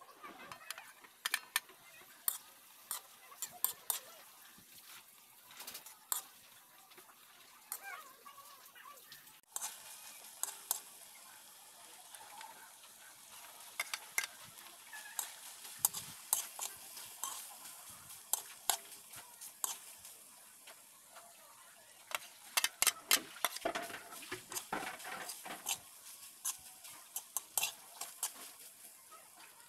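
Metal spatula clinking and scraping against a wok as fried rice is stirred, over a steady sizzle. The clinks come in quick clusters, and the sizzle grows after about ten seconds.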